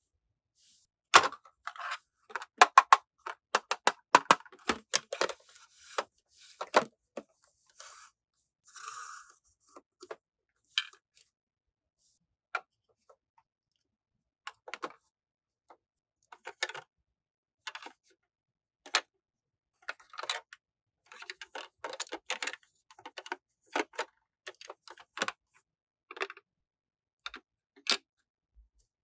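Small hard plastic toy pieces being handled and set down: an irregular run of sharp clicks and taps, thickest at the start and again in the second half, with a brief rustle about nine seconds in.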